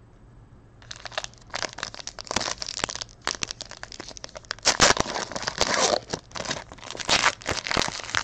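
Foil wrapper of a Panini Prizm basketball hobby pack crinkling as it is handled and torn open by hand, starting about a second in with many quick, irregular crackles.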